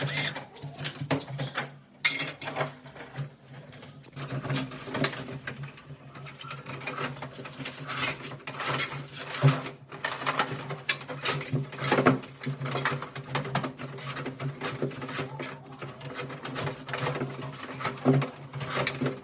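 Electric drill running steadily while boring a hole, with irregular scraping and knocking from the cut.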